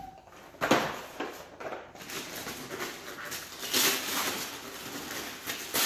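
Christmas wrapping paper being torn and crinkled by hand in a series of rough rips, the loudest under a second in and another near four seconds in.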